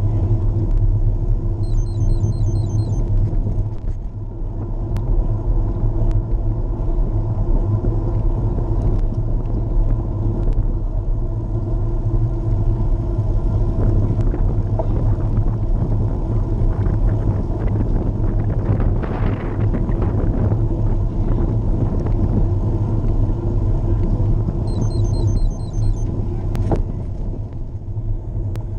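Steady wind rumble on the microphone of a camera riding on a moving bicycle, mixed with the hum of tyres rolling on pavement.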